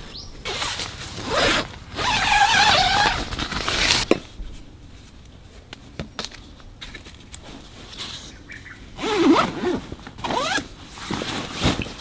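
A zipper pulled in a run of quick strokes, in two bouts: one during the first few seconds and another near the end.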